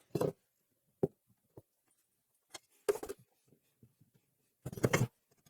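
A few brief knocks and clatters of tools and wood being handled, with stillness between them. The loudest cluster comes near the end.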